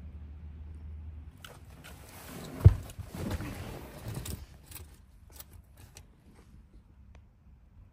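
Handling noise from a handheld camera moving about a car's centre console: rustling and a few light clicks, with one sharp thump a little under three seconds in. A low steady hum stops just over a second in.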